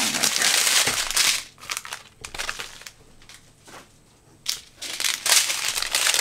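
Crinkling of a strip of small clear plastic bags holding diamond painting drills as it is handled and laid down: rustling for about the first second and a half, a quieter stretch with a few small ticks, then crinkling again from about four and a half seconds in as the bags are picked up.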